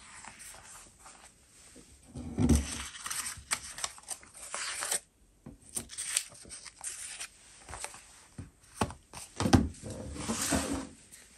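Sheets of loose-leaf paper rustling and sliding as they are handled, with a leather Filofax binder being opened and closed. There are two soft thumps, about two and a half seconds in and again near the end, and light clicks in between.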